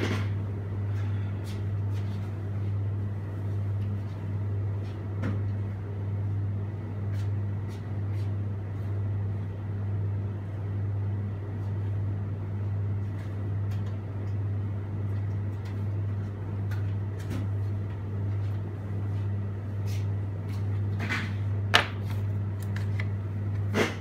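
A steady low hum that swells and fades gently about once a second, with a few light clicks and one sharper click near the end.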